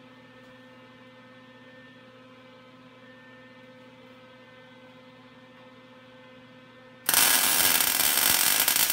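A faint, steady electrical hum, then about seven seconds in a Lincoln MIG welder's arc strikes and crackles loudly and continuously as a bead is laid.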